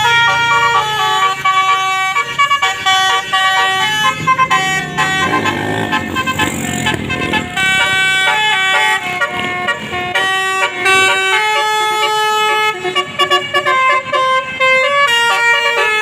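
Basuri musical vehicle horn playing a melody, its horn tones stepping quickly from note to note in a continuous tune.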